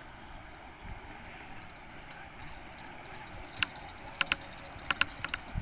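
Insects chirping in a steady high drone, with a series of sharp clicks in the last two seconds.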